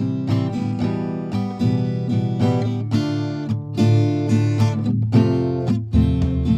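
Background music: an acoustic guitar playing a steady run of plucked and strummed chords.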